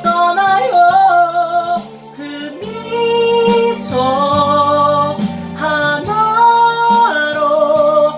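A man singing a ballad into a karaoke microphone over a karaoke backing track, holding several long notes one after another.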